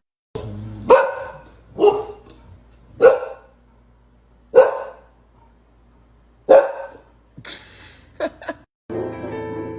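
A dog barking: five single loud barks spaced about one to two seconds apart, followed by a few shorter, fainter sounds shortly before the end.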